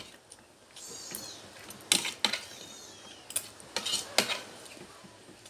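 Spoons clinking and scraping on plates during a meal, with several sharp clinks in the second half. Faint high-pitched chirps come twice in the background.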